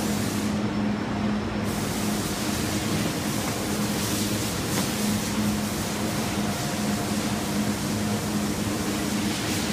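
Steady rushing background noise with a low, steady hum, and no distinct knocks or handling sounds.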